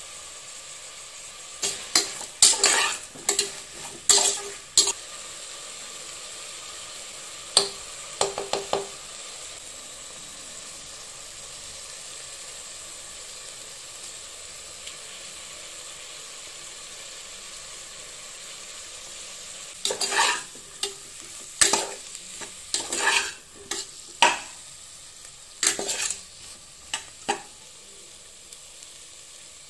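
Vegetables sizzling steadily as they fry in a metal pressure cooker, with bursts of a spoon scraping and clinking against the pot as they are stirred: a few seconds in, again around eight seconds, and through much of the last third.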